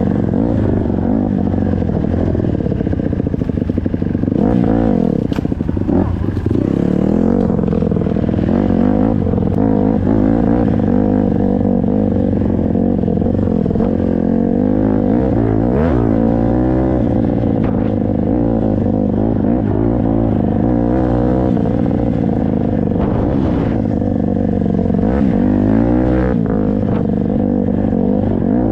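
Honda CRF150R dirt bike's four-stroke single-cylinder engine being ridden, its revs rising and falling over and over, with occasional knocks and rattles from the bike.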